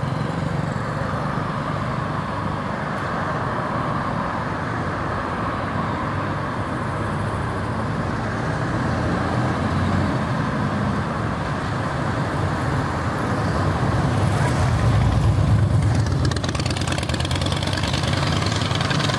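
Night street traffic noise: a steady hum of passing road vehicles, swelling with a deeper rumble as a vehicle passes closer about fifteen seconds in.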